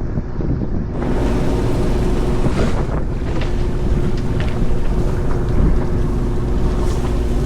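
Fishing boat's engine rumbling on the water, with wind buffeting the microphone. About a second in, the wind noise grows and a steady hum comes in.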